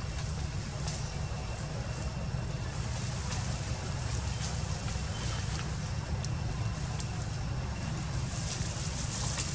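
Outdoor ambience: a steady low rumble with scattered faint clicks and rustles.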